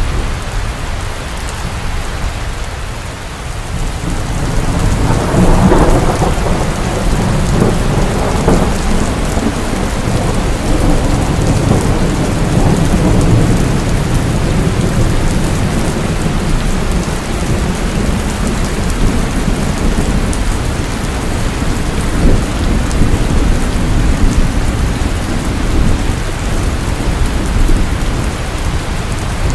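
Steady rain pouring, with thunder rumbling underneath; the rumble eases a couple of seconds in and swells again about five seconds in.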